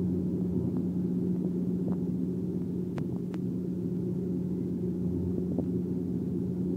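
Cabin drone of a high-wing propeller airliner in flight: a steady engine and propeller rumble with a strong constant low hum. Two light clicks come about three seconds in.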